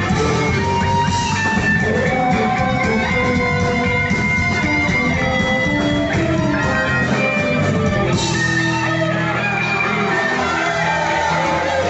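A rock band playing an instrumental passage of a song live, with guitar to the fore.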